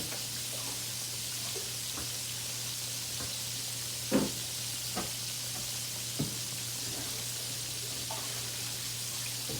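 Pork chops frying in hot oil, a steady sizzle, with a few sharp knocks, the loudest about four seconds in.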